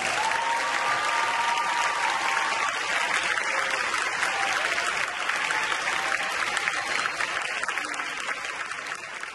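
Theatre audience applauding, with a few voices cheering over the clapping in the first two seconds. The clapping thins out near the end.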